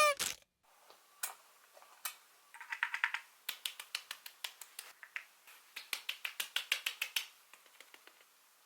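A run of light, sharp clicks and taps, a few scattered at first, then quick runs of several a second before they thin out near the end.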